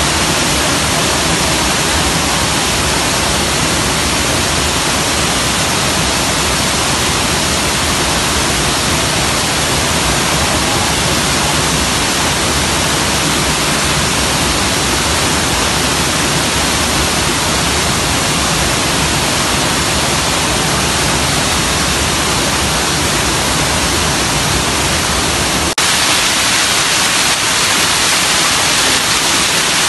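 Stream water rushing over rocks below a waterfall, a loud steady hiss. About 26 seconds in it cuts abruptly to a thinner rush with less low rumble.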